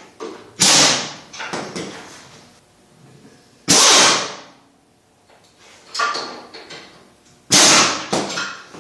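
An air-powered wrench fires three short bursts about three seconds apart, snugging up the engine's mounting bolts to the frame. Lighter clicks and knocks of tool and metal come between the bursts.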